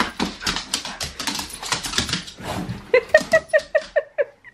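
Small wet curly-coated dog with the zoomies after a bath: scrabbling and rustling at first, then a rapid string of short, high yaps near the end.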